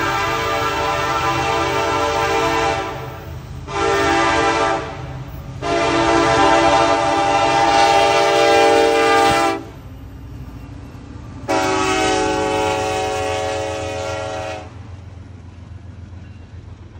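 Norfolk Southern freight locomotive's multi-note air horn sounding the grade-crossing warning: a blast ending about three seconds in, a short blast, then two long blasts. A steady low rumble of the train rolling past runs underneath and continues after the horn stops.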